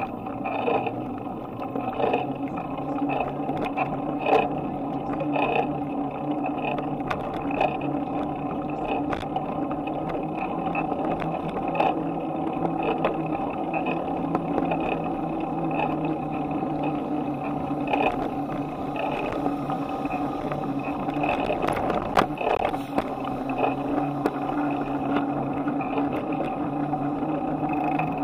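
Bicycle riding along, heard through a handlebar-mounted camera: a steady hum with frequent ticks and rattles, and a sharper knock a little past twenty seconds in.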